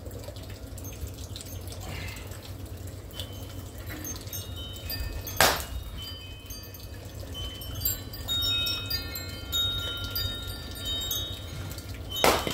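Two splitting-axe strikes into log rounds, sharp single impacts about five seconds in and near the end. Wind chimes ring in between.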